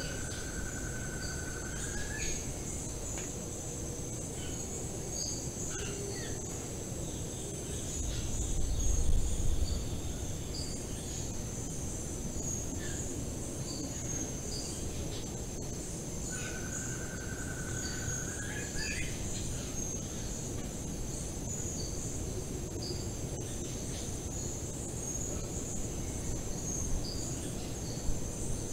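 Tropical forest ambience: a steady high-pitched insect chorus with scattered short bird chirps. Twice a bird gives a whistled note held about two seconds that rises at its end. A low rumble swells briefly about eight seconds in.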